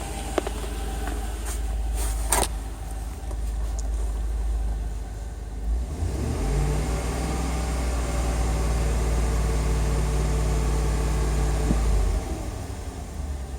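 A 2002 Chevrolet Tahoe's 5.3L V8 running with a steady low rumble. A steadier hum comes in about halfway through and stops near the end, and there are a couple of sharp clicks early on.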